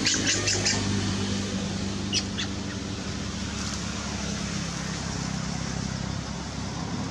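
A steady low engine hum, with a quick run of short high chirps at the start and two more about two seconds in.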